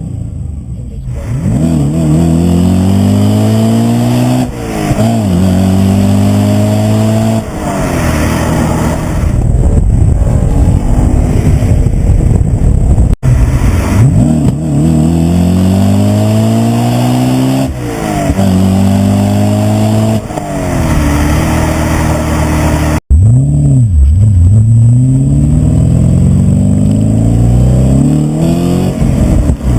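Tuned Audi RS4 engine accelerating hard through the gears, with an aftermarket intake, head work and a remap. The revs climb steadily, then fall sharply at each gear change, again and again. The sound breaks off abruptly twice.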